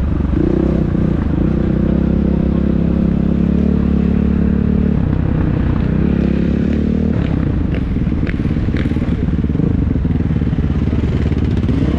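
Dirt bike engine running at low speed as the bike is ridden slowly through the pits. Its note shifts about five seconds in and again about seven seconds in, with a few sharp ticks soon after.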